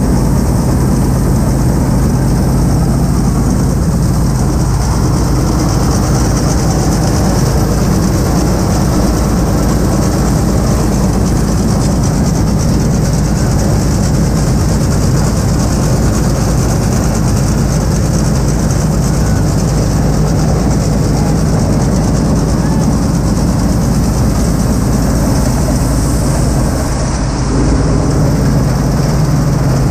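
Claas Dominator combine harvester working while harvesting winter barley: a loud, steady machine drone from the engine and threshing gear together with the header's cutter bar and reel, heard close up at the header.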